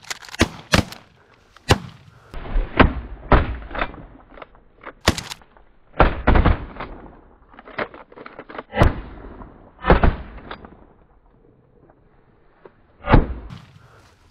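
Several hunters' shotguns firing at a flock of mallards: a ragged volley of about a dozen shots spread over the stretch, each report trailing off briefly, with a lull before one last shot near the end.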